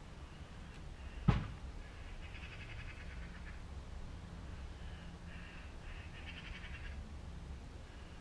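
A single sharp knock about a second in, then two bouts of rapid, chattering bird calls.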